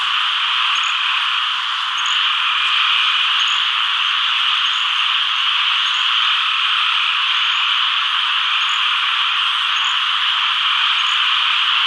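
A loud, unbroken chorus of countless frogs calling all at once, a steady wall of high-pitched sound: a breeding chorus after rain. A faint, higher chirp repeats about once a second over it.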